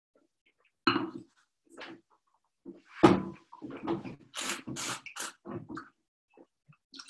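Wine-tasting mouth noises: a sip of white wine drawn in and slurped, air pulled through it in a series of short hissing slurps.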